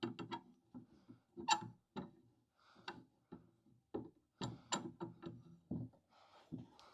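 Woodworking clamp being tightened on a glued-up panel: a series of irregular clicks and small knocks as it is worked tighter.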